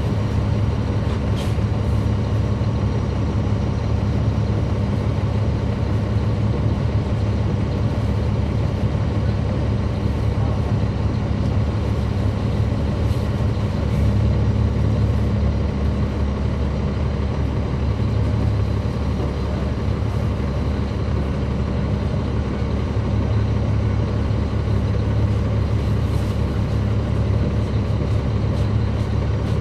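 Caterpillar C13 ACERT diesel engine of a NABI 416.15 transit bus, heard from the rear seats inside the bus, running with a steady low drone.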